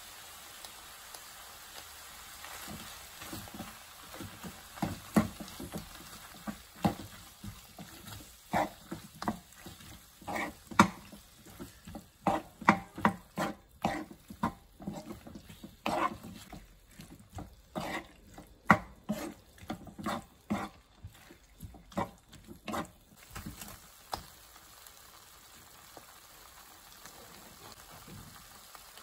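Squid slices and chilli paste stir-fried in a hot nonstick pan: a steady sizzle with repeated stirring strokes, about two a second, from a few seconds in until a few seconds before the end, when the sizzle goes on alone.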